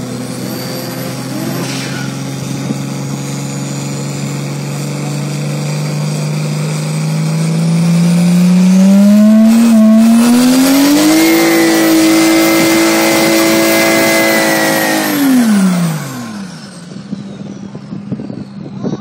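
Diesel Mercedes saloon's engine held at steady revs, then revved up over about three seconds to a high, loud held note for a burnout, before the revs drop away sharply near the end.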